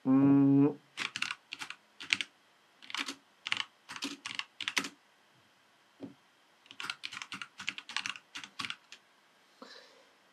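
Computer keyboard typing in three quick runs of keystrokes with short pauses between. At the very start a brief, louder hum of a voice is held for under a second.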